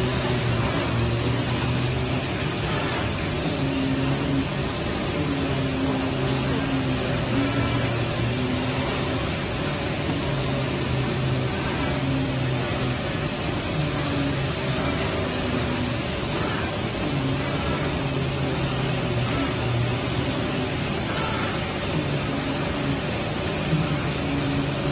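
CNC oscillating-knife cutting machine cutting aramid (Kevlar) fabric: steady machine hiss with a low hum that comes and goes as the cutting head travels, and a few sharp clicks.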